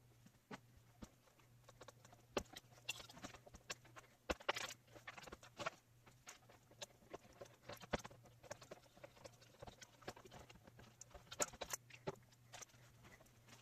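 Faint, irregular clicks and taps of hands and a screwdriver working on a desktop computer case and its parts, over a low steady hum.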